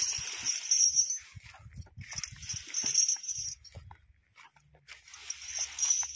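Working elephant walking across dry rice stubble, with three bursts of high, jingling rustle about two and a half seconds apart and faint low knocks between them.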